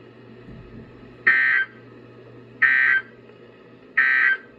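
Emergency Alert System end-of-message signal: three short, identical bursts of shrill digital data, about 1.3 seconds apart, marking the end of the alert.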